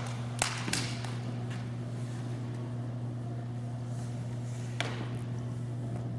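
A steady low hum with a few sharp taps: two within the first second and one about five seconds in.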